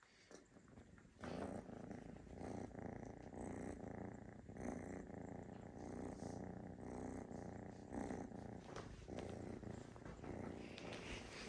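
Domestic cat purring steadily and close up, starting about a second in.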